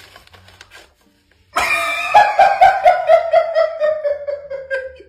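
Hearty, high-pitched laughter: a loud burst of rapid ha-ha pulses that starts suddenly about a second and a half in and slides slowly down in pitch. Before it there is only faint rustling.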